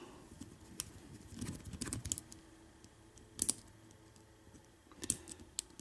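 Scattered small metallic clicks and taps as a deadbolt lock cylinder is handled, with a few sharper clicks spaced unevenly.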